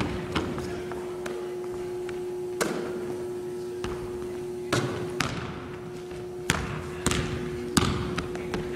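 Basketball bouncing and thudding on a hardwood gym floor: several irregularly spaced thuds, each echoing through the hall, over a steady hum.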